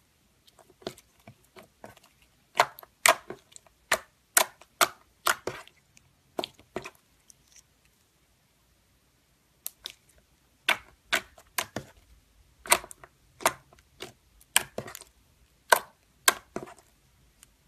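Glossy dark blue slime being squeezed and kneaded by hand, giving sharp pops and clicks of trapped air in quick clusters, with a lull of about two seconds about halfway through.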